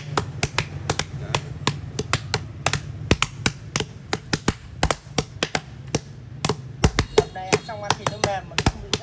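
Knife blade striking a wooden chopping board again and again as pork is cut, in sharp, irregular knocks about two or three a second.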